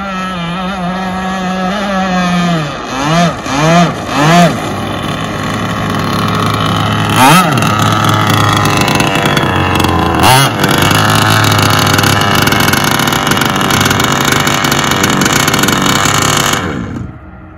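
Two-stroke gas engine of an Enforcer Stingray RC hydroplane, revved quickly up and down three times, then settling to a steady low idle with two sharp throttle blips. It cuts off near the end.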